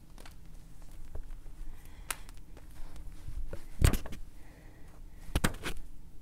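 A few scattered knocks and thumps from puppets being handled behind a chair-back stage, the loudest a little before the middle and two quick ones near the end.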